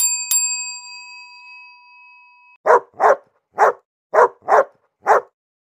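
A bell chime struck twice, ringing out and fading over a couple of seconds, then a dog barks six times in quick succession.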